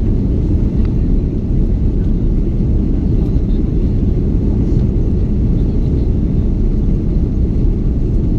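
Steady low rumble in the cabin of an Airbus A330-200 as it rolls on the ground: engine noise and the wheels on the tarmac, even and unchanging.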